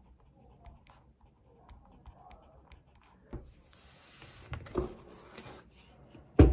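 Pen writing on the paper of a hardbound journal, quiet scratchy ticks, then the book is closed and handled on a desk with a few sharp knocks, and a loud thump at the very end.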